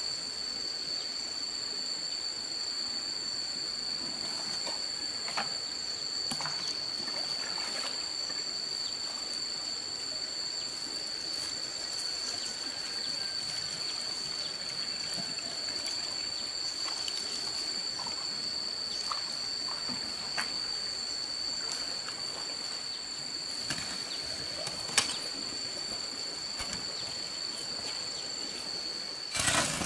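Water trickling, with a steady high-pitched whine held over it and scattered small clicks and ticks, one sharper click about 25 seconds in. An engine comes in abruptly right at the end.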